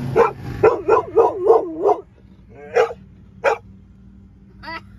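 Dog barking inside a car: a quick run of about six barks in the first two seconds, then two single barks about a second apart.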